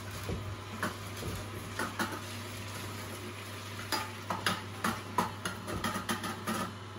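Angel twin-gear juicer running with a steady low hum while watercress is pressed down its chute with a wooden plunger and crushed between the gears, crackling and snapping irregularly, more densely in the second half.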